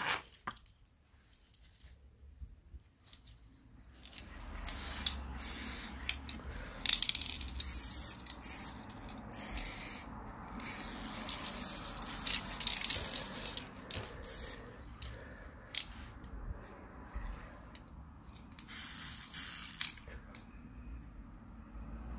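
Aerosol spray paint can hissing in a string of short bursts with pauses between, as it sprays a metal watch and bracelet.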